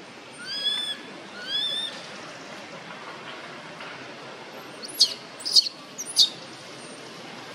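Newborn macaque crying: two rising squeals in the first two seconds, then three short, sharp, falling squeals in quick succession about five seconds in.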